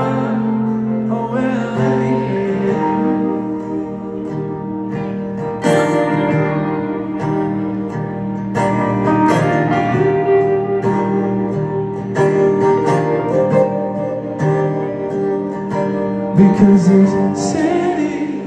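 Live band music: a strummed acoustic guitar and an electric guitar playing together, with chords struck anew every few seconds.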